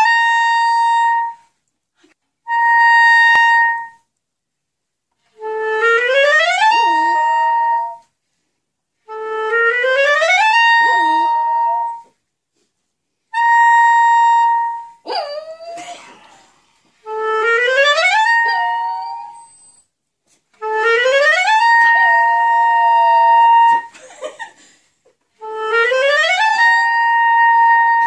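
Clarinet playing about eight phrases, each a rising glide up to a long held high note, separated by short pauses. A Yorkshire terrier howls along, its wavering howl sliding under the held notes.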